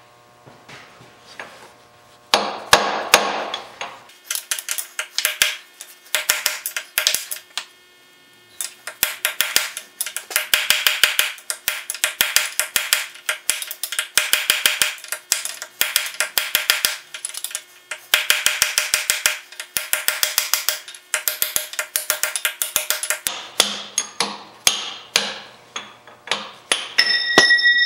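Ball-peen hammer striking a steel punch in quick runs of taps with short pauses, driving a bearing race out of a cast-iron lathe headstock housing. The race is being worked around its edge a little at a time.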